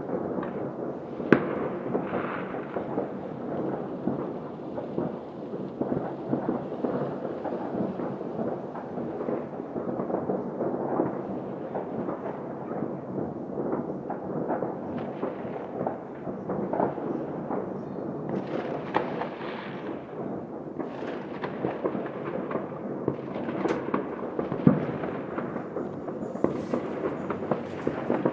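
Many fireworks going off across a city at once: a continuous overlapping crackle and popping of distant shells, with a few sharper, louder bangs standing out, one about a second in and another near the end.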